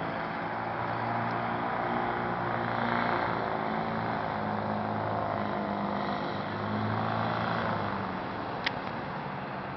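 Hovercraft engine and fan running steadily, with a rushing air noise over the engine hum, swelling twice and easing back. A single sharp click near the end.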